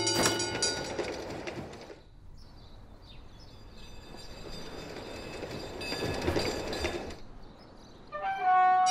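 Tram rolling along its rails, the rumble growing louder and then cutting off about seven seconds in, after a brief bright ringing at the start. Light mallet-percussion music comes back near the end.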